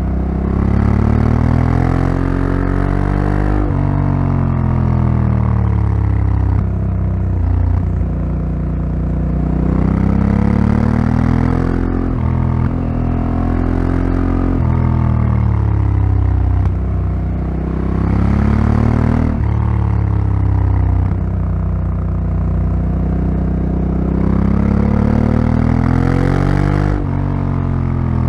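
Honda Africa Twin CRF1100L's 1,084 cc parallel-twin engine heard onboard under riding. The engine note climbs in pitch with the throttle and then drops sharply, again and again, as the bike accelerates out of one bend after another.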